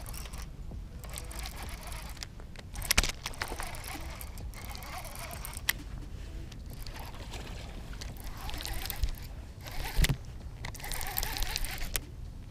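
Fishing reel being cranked, a rapid rasping ratchet, with water splashing and a few sharp knocks, the loudest about three seconds in and again near ten seconds.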